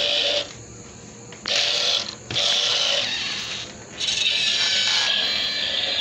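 Toy RC car's small electric motor and gearbox whirring in short spurts as it is driven, with several brief stops and restarts.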